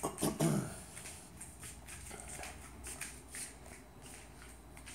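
Faint rustling, handling noise and light footsteps as someone walks across a room with the camera. A short low vocal sound comes right at the start.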